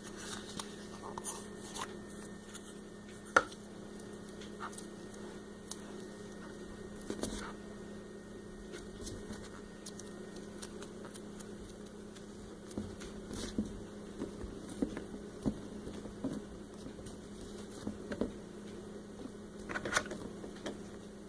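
Scattered soft clicks and taps of plastic Play-Doh molds and tools being handled and pressed into dough, over a steady low hum.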